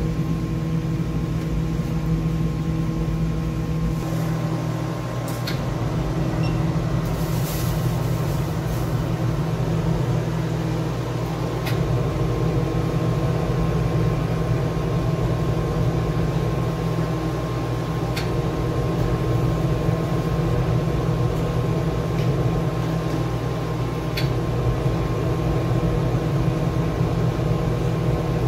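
Steady low machine hum with a few steady tones, with a few faint clicks and a brief hiss about seven seconds in.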